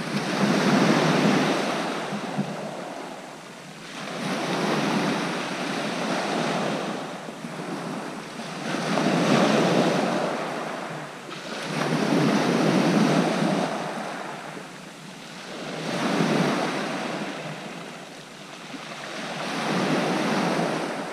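Sea waves breaking and washing up a shingle beach, swelling and fading about every three to four seconds.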